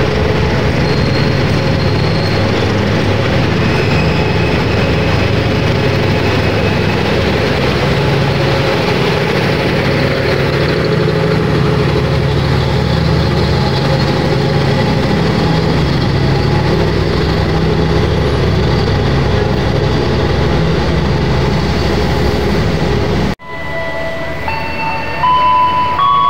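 Passenger train coaches rolling past a station platform: a steady, loud rumble of wheels on rail. It cuts off abruptly near the end and gives way to a few steady tones over quieter station background.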